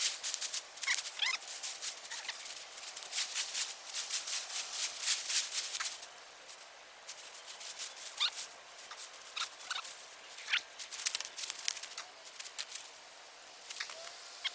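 Scratchy rustling and scraping of soil being dug through by hand for potatoes, heaviest in the first half, with a few short chirps now and then.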